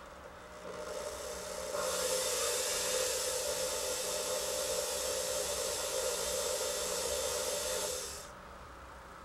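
Small drill with a bit set in acrylic running with a steady hum and hiss, building up about a second in and stopping about eight seconds in.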